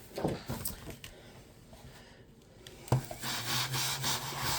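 Paper being shuffled, then a click about three seconds in and a small battery toy motor whirring with a rasping buzz as a dancing cat toy starts moving.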